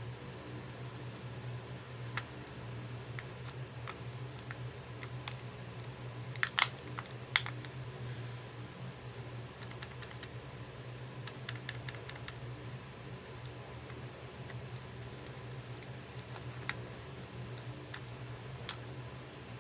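Small plastic clicks and taps from a toy makeup compact and its pink applicator being handled, scattered and irregular, with the sharpest pair about a third of the way in. A steady low hum runs underneath.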